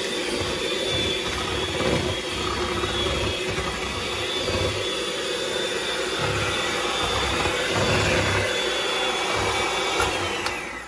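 Electric hand mixer running steadily at a constant pitch as its beaters whip cream-cheese cheesecake batter, blending in an egg. It shuts off at the very end.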